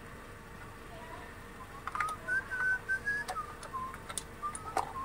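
A short run of whistled notes that step up and down in pitch, starting about two seconds in. Scattered sharp clicks come from the tyre inflator's air hose and power cable being handled and uncoiled.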